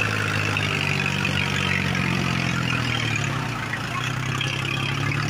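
Tractor diesel engine running steadily under load, heard up close from the driver's seat while pulling an implement through soft soil; the engine note sags slightly about three and a half seconds in, then steadies.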